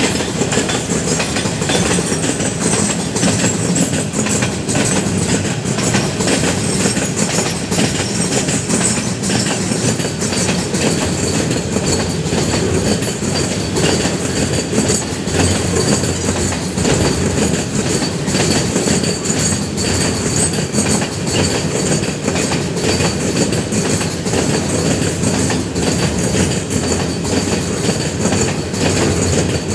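Container freight train's loaded flat wagons rolling steadily past on steel rails: a continuous rumble of wheels with a running clickety-clack.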